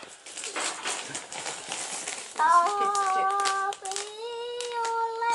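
Plastic packet crinkling, then from about two and a half seconds in a child sings a few long, held notes that step in pitch, with a short break partway.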